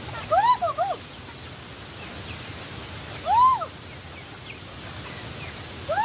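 Poultry calling: a quick run of three rising-and-falling calls near the start, a single longer call about three seconds in, and another run near the end. Faint higher chirps and a steady background noise lie underneath.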